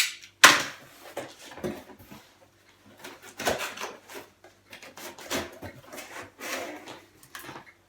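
Cardboard box being opened and its packaging handled: irregular scrapes and rubs, with a sharp knock about half a second in.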